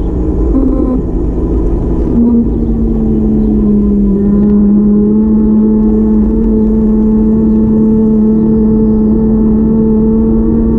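Car running on the road with a steady low rumble and a humming engine note. The note steps in pitch in the first couple of seconds, then holds and slowly rises.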